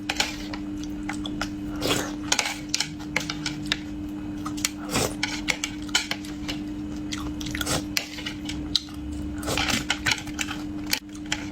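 Close-miked eating of braised fish: chewing and biting, with frequent sharp clicks of utensils against a dish, over a steady low hum.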